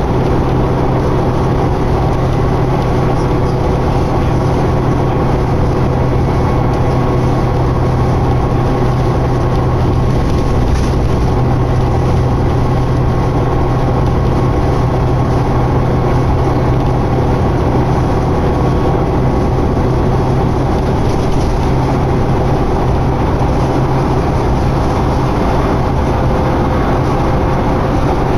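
Interior ride noise of a 2011 New Flyer D60LFR articulated diesel bus cruising at a steady speed: a steady low engine drone over road and tyre noise.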